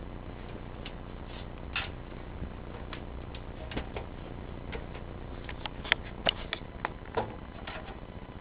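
Scattered clicks and light knocks from a vintage box fan being handled, several sharper ones close together about six to seven seconds in, over a steady low hum.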